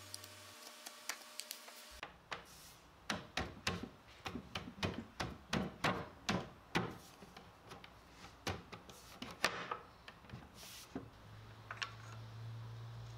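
A run of light, sharp wooden taps, irregular at about two a second, as wooden wedges are tapped into the oak through-tenons of a bookshelf to lock the joints. A steady low hum comes in near the end.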